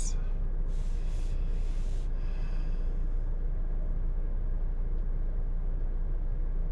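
A man breathing out audibly twice in the first few seconds, over a steady low rumble in a car's cabin.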